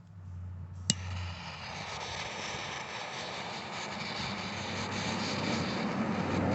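A lighter clicks once about a second in, followed by a steady rushing noise that slowly grows louder.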